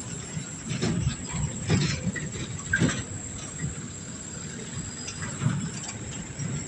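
A steady high insect trill, with irregular close rustling and crunching over it. The crunching is loudest about one, two and three seconds in.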